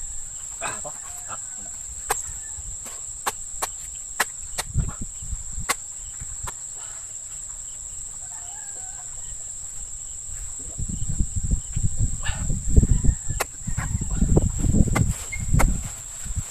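A steady high-pitched insect drone, like a cricket or cicada, with scattered sharp clicks. From about eleven seconds in, low rumbling bumps come in, louder than the rest.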